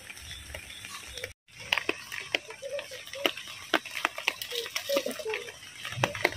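Sharp clicks and knocks of a plastic bottle and a steel pot being handled at an outdoor clay stove while cooking, with short wavering calls in the background.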